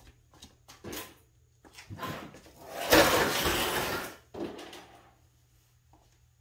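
Footsteps walking off across a concrete garage floor, then about three seconds in a loud scraping, rustling clatter of things being handled, lasting a second or so before it dies away.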